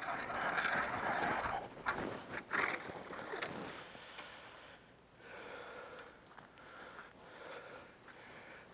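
Close handling and rustling noise with a few sharp knocks as ice-fishing gear is picked up. This is followed by quieter footsteps on a thin layer of snow over lake ice, from someone walking while carrying a hand ice auger.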